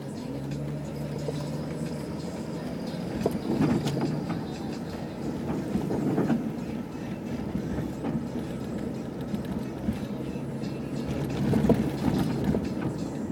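Road and engine noise inside a moving car: a steady low rumble, with a few short knocks and rattles about three, six and twelve seconds in.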